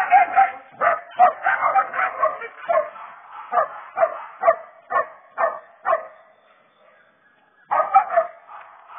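Twelve-week-old cur puppies barking and yipping in quick succession; after about three seconds the barks slow to about two a second, stop for a moment, and a short burst of barks comes near the end.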